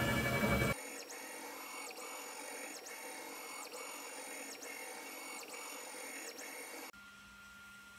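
Music cuts off within the first second. Then the NymoLabs CNC's stepper motors drive the laser module back and forth on raster engraving passes: a faint high whine that dips and rises again at each line end, about once a second. It stops near the end, leaving a faint steady hum.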